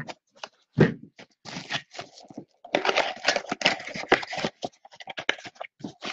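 Plastic shrink wrap being slit and torn off a Topps Finest trading card box. It crinkles and crackles in quick flurries of short, sharp snaps, busiest in the second half.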